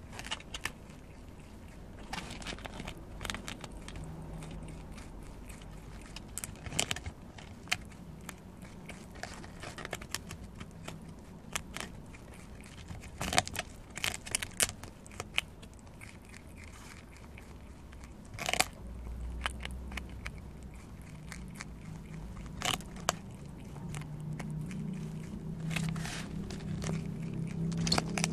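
Prairie dog biting and chewing the green husk of a whole ear of corn: irregular crisp crunches and crackles as its teeth work the husk.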